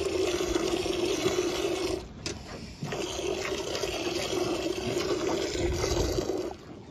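Milk squirting by hand from a ewe's teat into a metal pail and hissing into the froth. The sound breaks off briefly about two seconds in and stops shortly before the end.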